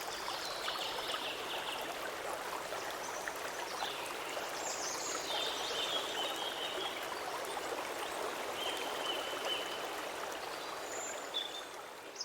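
Flowing stream: a steady rush and babble of water, with a few short high-pitched chirps over it. It begins to fade out near the end.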